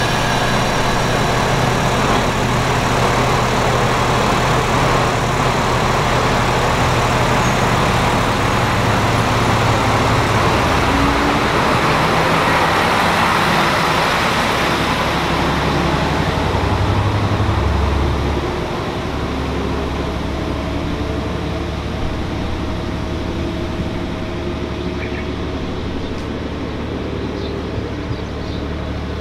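Kashima Rinkai Railway diesel railcar pulling away from a platform: the diesel engine runs with a low drone while the wheels rumble over the rails. It grows quieter about two-thirds of the way through as the railcar draws off.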